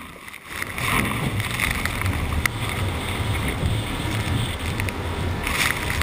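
Seawater breaking over the deck of an ocean racing yacht in heavy seas: a rush of water and spray that comes in suddenly about a second in and keeps going, over a low rumble of wind on the microphone.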